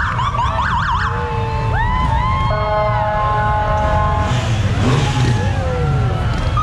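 Police motorcycle sirens giving short warbling yelps and swooping chirps, with a few held tones, over the low rumble of motorcycle engines as a police motorcycle escort rides past.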